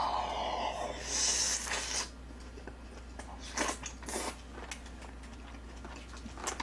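Close-up eating sounds: a large mouthful of braised aged kimchi slurped in during the first two seconds, then a few short, wet chewing smacks.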